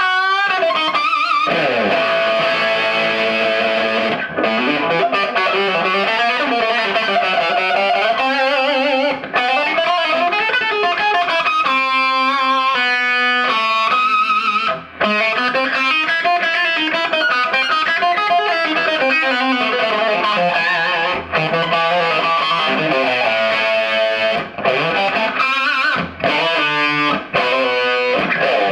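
Electric guitar played through a 1986 Marshall JCM800 4210 50-watt valve combo, the repaired amp being played after its fix: held notes and chords with a quick flurry of fast repeated notes about halfway through and again near the end.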